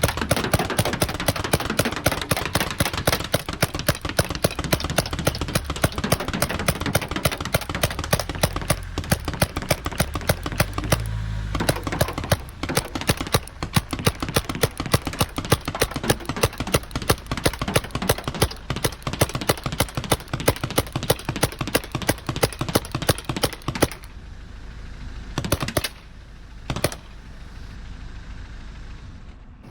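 Paintball gun firing rapidly, several shots a second in long sustained bursts: one of about eleven seconds, a brief pause, another of about twelve seconds, then a few single shots near the end.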